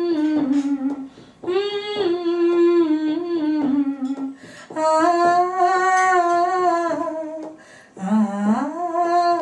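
A woman humming a Bengali song's melody unaccompanied, in long held phrases with short breaks between.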